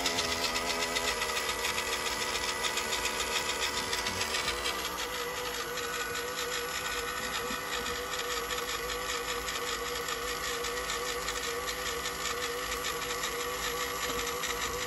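The stock motor and geared drivetrain of a WPL C74 1/10 Jimny RC crawler running at low throttle with its wheels spinning: a steady whine over a fast gear chatter, settling in pitch about a second in. The stock electronics cannot run it any slower.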